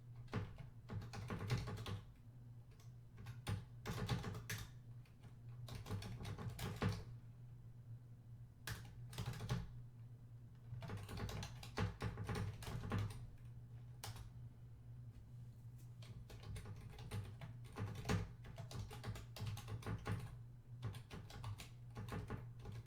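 Typing on a computer keyboard in irregular runs of key clicks with short pauses, over a steady low hum.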